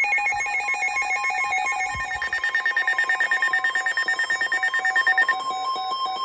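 Emergency alert tones announcing a tornado warning: several electronic tones sound at once, pulsing rapidly, like a harsh electronic ringing. About two seconds in the pattern shifts to a higher tone, which drops out about five seconds in while a lower tone carries on.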